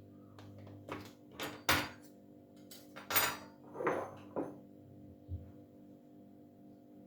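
Kitchen handling sounds: a string of clinks, knocks and a short scrape from dishes and utensils being picked up and set down, over soft ambient background music.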